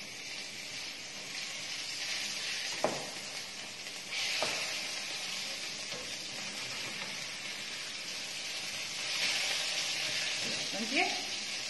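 A fish fillet sizzling steadily as it pan-fries, the sizzle swelling louder about four seconds in and again near nine seconds. Two light knocks come from the wooden spoon in the pan as the fillet is turned.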